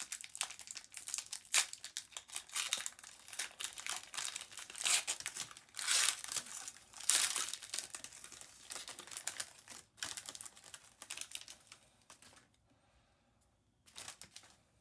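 Plastic foil wrapper of a 2019 Panini Prizm football card pack crinkling and tearing as it is ripped open. The crackling goes on busily, then stops about two seconds before the end, with one short crinkle near the end.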